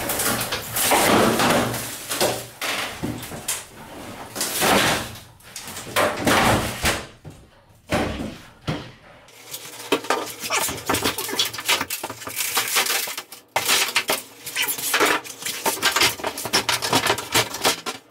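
Thin fiberglass shower wall panels being wrenched free of the wall studs and pulled out: irregular scraping and knocking clatter as the panels flex and bang, with many sharp knocks in quick runs.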